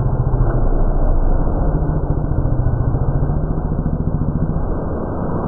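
Storm ambience played back at a tenth of its speed: a deep, steady, dense drone with a low hum, easing slightly near the end.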